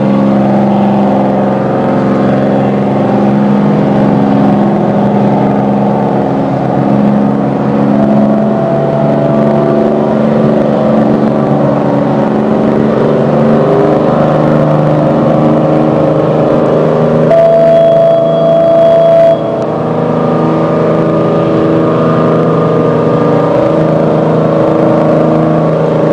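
Crew boat's Detroit Diesel engines running under way, a loud steady drone as the boat pulls away. About two-thirds of the way through, a platform fog horn sounds one steady blast of about two seconds that cuts off suddenly.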